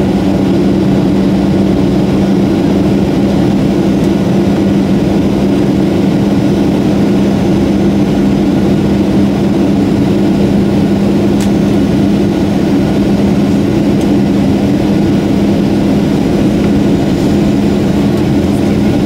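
Boeing 737 airliner cabin noise in flight: a steady engine drone with a constant low hum over a broad, even rush of air noise.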